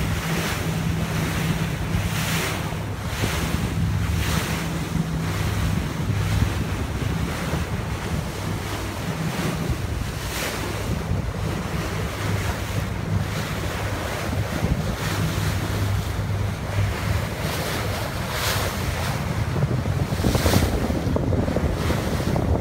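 Wind buffeting the microphone and sea water rushing past the hull of a boat under way, the noise swelling and fading every second or so, over the low steady hum of the boat's engine.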